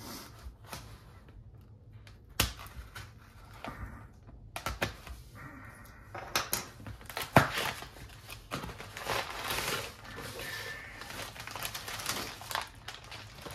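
A small knife blade scraping and slicing through the tape on a cardboard mailing box, with scattered clicks and scrapes. About halfway through, the flaps are pulled open and paper and plastic wrapping rustle and crinkle steadily, with a few sharp crackles.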